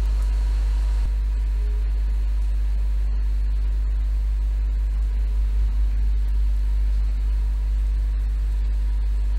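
Steady low hum of background noise in a voice-over recording, with no speech and no distinct events.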